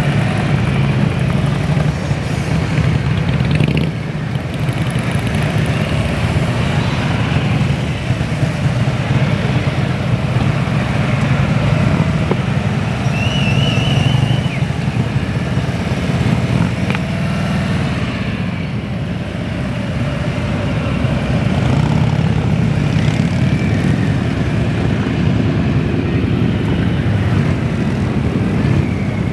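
Motorcycle engine running with a steady low rumble that swells and eases slightly.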